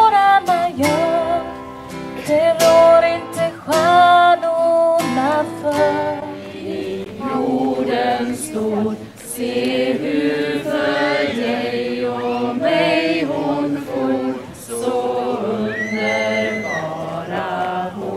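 A woman singing with a strummed acoustic guitar. About six seconds in, a small group takes over, singing a folk song together in unison to string accompaniment.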